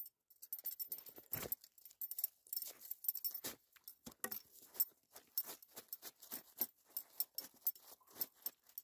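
Ice scoop clearing slush and ice chips from a fishing hole: a quick, irregular run of crunchy scrapes and clinks of ice.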